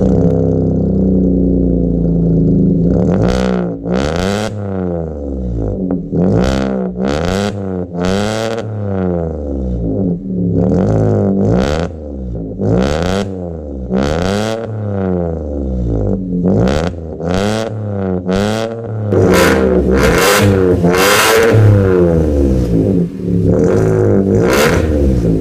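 Toyota Wigo's engine revving through an aftermarket full exhaust system, heard at the tailpipe: a run of short rev blips, each rising and falling in pitch, about one a second. From about three-quarters of the way through, the revs are held higher with harder blips.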